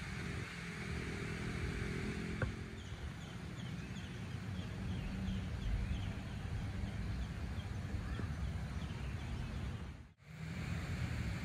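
Outdoor ambience: a steady low rumble, with a bird calling in a quick run of short chirps, about three a second, for a few seconds in the middle. The sound drops out for a moment near the end.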